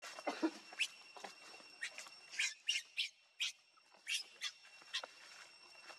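A baby macaque gives a rapid string of short, high-pitched squeals, about a dozen, as its mother grabs and pulls at it.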